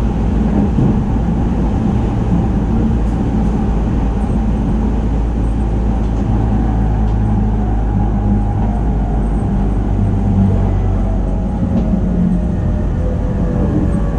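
JR 209 series electric commuter train running, heard from inside the motor car: a steady rumble of wheels on rail, with a faint whine that falls slowly in pitch near the end.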